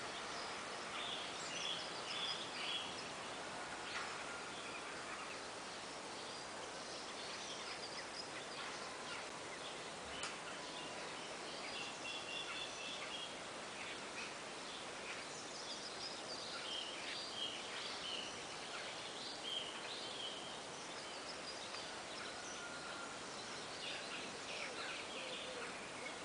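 Several songbirds singing and calling on and off: short, high, repeated phrases over a steady background of outdoor noise.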